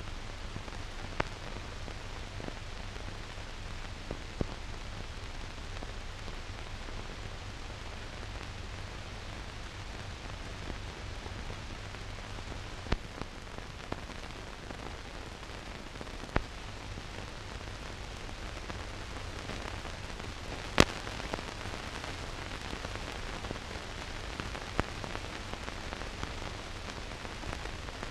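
Steady hiss with a low hum and scattered sharp clicks, the loudest a pop about three-quarters of the way through: surface and transfer noise of a silent newsreel print that has no soundtrack.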